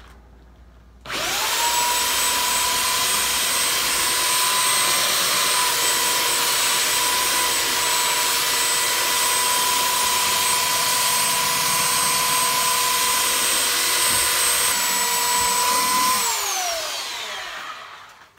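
Ryobi corded belt sander switched on about a second in, running steadily with a high motor whine and the hiss of the belt sanding a bare wooden dresser top, then switched off near the end, its whine falling as the motor winds down.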